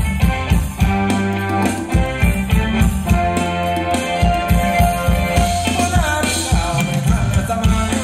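Live band playing upbeat Thai ramwong dance music, with a steady beat of drums and bass. A long held note sounds in the middle.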